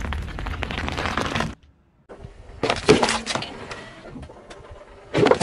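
Car tyre rolling slowly over a bunch of grapes, a dense run of crackling pops as the grapes burst under it. After a short silence, more crushing crackles with sharp cracks about three seconds in, and a loud new crush starts just before the end as the tyre reaches a juice carton.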